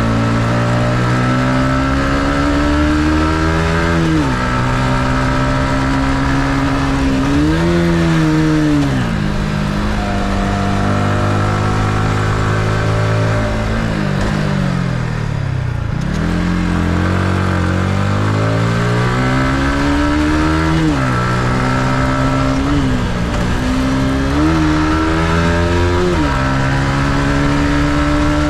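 Yamaha MT-15's stock-exhaust 155 cc single-cylinder engine under way, its revs climbing in each gear and dropping sharply at each upshift, several times over. About halfway through, the revs fall away steadily as the bike slows, then climb again through the gears.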